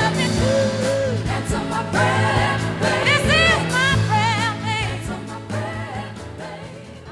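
Background pop song: a singer holding wavering, ornamented notes over a band, fading out over the last couple of seconds.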